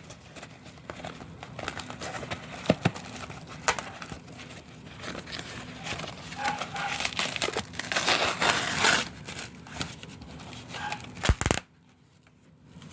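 Packaging being handled and torn open: crinkling and tearing with scattered clicks, a longer tearing stretch about eight seconds in, and a sharp knock just before the sound drops away near the end.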